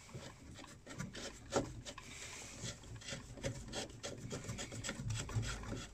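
Plastic diverter valve motor head on a Vaillant ecoTec boiler being twisted and worked by hand to pull it off the valve, with irregular scraping, rubbing and small clicks.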